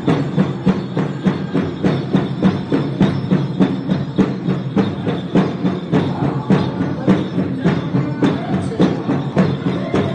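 Powwow drum group beating a large drum in a steady, fast beat of about three strokes a second, with voices singing over it.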